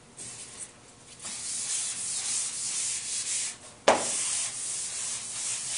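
Chalkboard eraser rubbing across the blackboard, wiping off chalk in a steady scratchy hiss that starts about a second in. A single sharp knock comes about four seconds in, and then the rubbing goes on.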